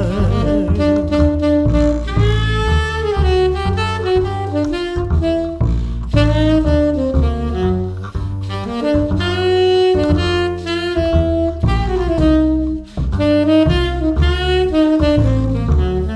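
Instrumental break of a slow jazz ballad with no singing: a solo melody instrument plays a line of held and moving notes over bass accompaniment.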